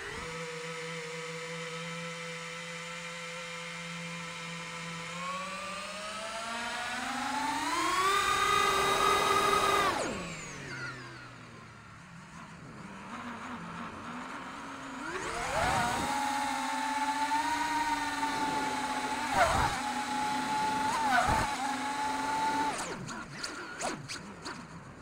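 Brushless motors and propellers of a 5-inch FPV quadcopter whining, heard from its onboard camera: a steady hum at low throttle, then a rising whine as the throttle is pushed up, dropping off sharply about ten seconds in. The whine rises again and holds high with a couple of brief spikes, then falls away into crackling near the end.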